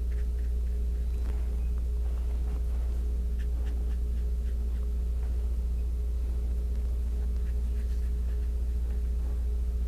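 A steady low hum with a fainter constant tone above it, and now and then faint soft scratches of a watercolour brush on paper.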